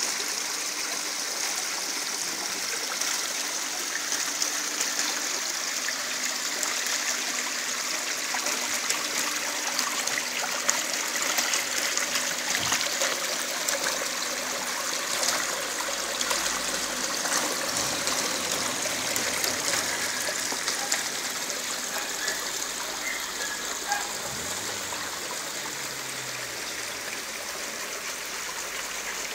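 Water from a rock garden fountain cascading down small stone steps and splashing into its pond: a steady splashing trickle.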